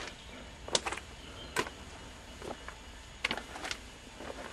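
Footsteps, unhurried, a step roughly every second, over a faint steady background hiss.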